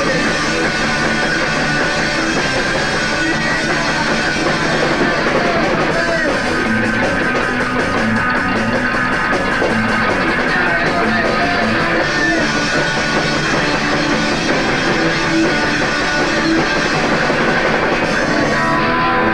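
Live punk rock band playing with electric guitar, bass guitar and drum kit.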